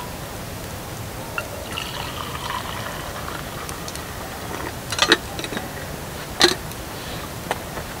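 Water poured from a small pot into a cup, a trickling stream lasting about a second and a half, followed by two sharp clinks about a second and a half apart, the loudest sounds.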